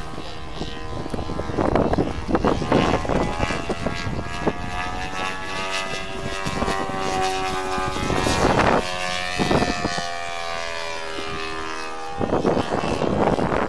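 Engine and propeller of a radio-controlled scale Christen Eagle biplane running in aerobatic flight, the engine's pitch rising and falling as it manoeuvres. Gusts of wind hit the microphone several times, heaviest near the end.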